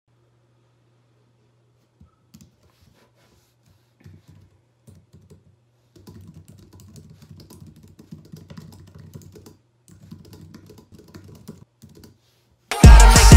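Typing on a slim computer keyboard: a few scattered keystrokes at first, then fast, steady typing with a brief pause about ten seconds in, over a faint low hum. Loud music with a heavy beat cuts in suddenly near the end.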